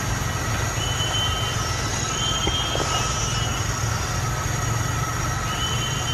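Steady drone of forest insects with several high whining tones, some fading in and out for a second or so at a time, over a steady low hum.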